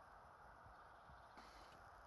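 Near silence: a faint steady hiss with a few very faint ticks.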